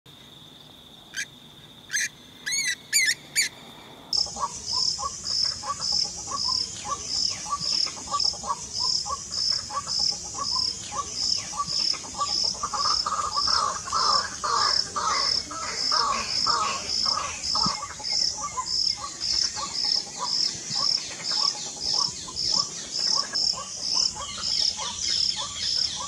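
White-breasted waterhen calling: a long, fast run of repeated croaking notes, as used for a lure call, over a steady high-pitched insect chirping at about two pulses a second. The first few seconds hold only a few short bird notes over a steady high whine before the run of calls begins.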